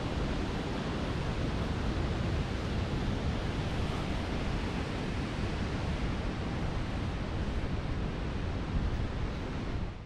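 Steady, even rushing noise with no pitch or rhythm, cutting off suddenly at the end.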